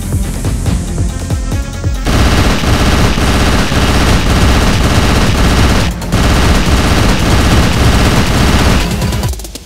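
Rapid automatic machine-gun fire, a long sustained burst over background music, starting about two seconds in with a brief break midway and stopping just before the end. Before it, only music with a pulsing beat is heard.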